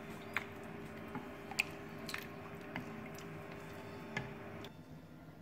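Wooden spoon stirring rice, potatoes and meat in milky liquid in a stainless steel pot: soft wet squishing with a few light clicks, over a faint steady hum that cuts off near the end.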